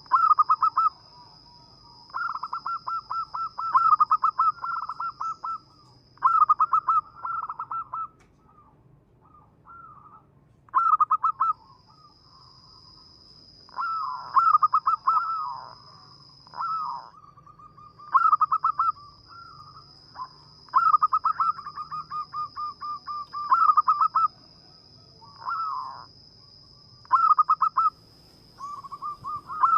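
Zebra dove (perkutut) singing: repeated phrases of rapid, staccato cooing notes, each phrase lasting one to two seconds, with short pauses between. A thin, steady high whine runs behind it and breaks off twice.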